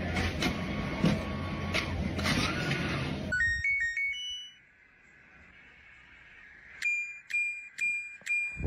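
About three seconds of loud, mixed noise with sharp knocks, which cuts off suddenly. Then a front-loading washing machine's program dial is turned and its selector beeps: first a quick run of four or five beeps climbing in pitch, then a faint hum, then near the end a steady string of single beeps, about two a second, one for each click of the dial.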